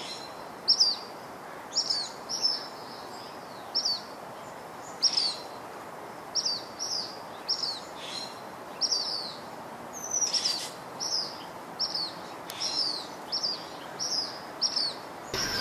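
A bird calling over and over: short, high chirps that fall in pitch, one or two a second and often in pairs, over a steady background hiss. Right at the end a louder pitched sound cuts in abruptly.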